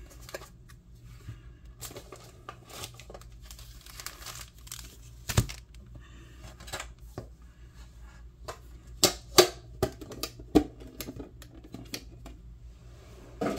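Plastic wrapping on trading card packaging being crinkled and torn as it is opened, with scattered sharp clicks and taps. The loudest come about five seconds in and in a cluster between about nine and eleven seconds.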